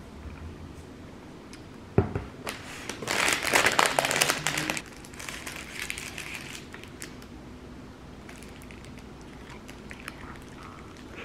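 A sharp click, then a few seconds of crinkling and crackling, as of something like packaging being handled, dying down to fainter rustling.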